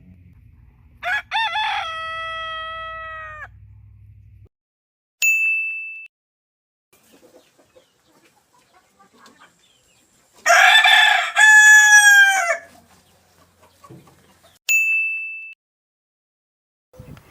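Two rooster crows: a long held crow about a second in, and a louder crow in two parts near the middle. A single bell-like ding sounds between them, and another after the second crow.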